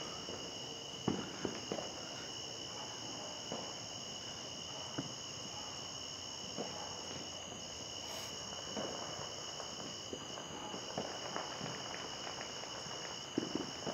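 Night-time insect chorus, a steady high-pitched drone at several pitches, with a few faint scattered pops and thumps.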